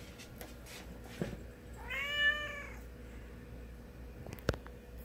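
Domestic cat giving a single meow about two seconds in, rising slightly and falling away. There is a short click about a second in and a sharp tap near the end.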